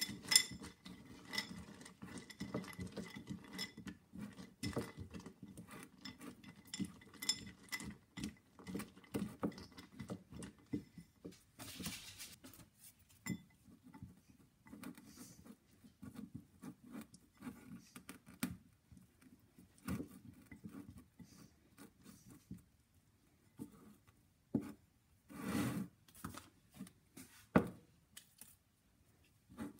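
Spatula stirring and scraping melting chocolate in a glass bowl: a quick run of light clicks and scrapes against the glass, thinning out about halfway through, with a few louder knocks near the end.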